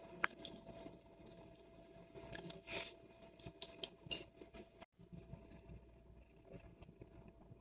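Quiet eating sounds: a few faint clinks and ticks of a metal spoon against a ceramic soup bowl, and soft chewing, over a faint steady hum.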